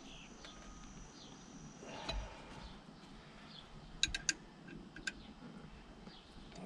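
Quiet hand-tool work on an engine: a wrench on the alternator adjusting bolt gives a dull knock about two seconds in, then a quick run of three sharp metal clicks about four seconds in and one more a second later as the belt is tightened.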